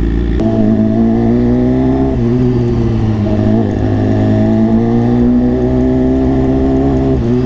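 BMW S 1000 RR superbike's inline-four engine running at low speed under a light throttle, heard from the rider's seat. Its note steps shortly after the start and shifts again about two seconds in, then holds steady.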